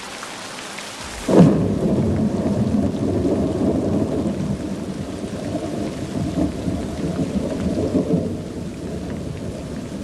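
Steady heavy rain with a clap of thunder about a second in, followed by a long rolling rumble of thunder that slowly fades.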